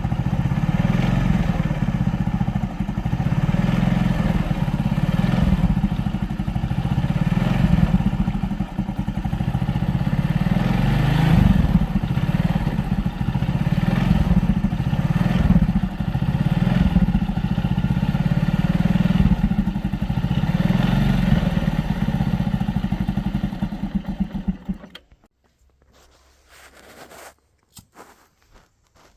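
Sanya R1000 motorcycle engine running steadily, then stopping abruptly near the end, followed by a few faint knocks.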